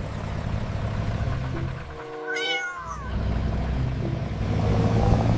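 A single short meow-like call about two seconds in, its pitch gliding and falling, over steady background music.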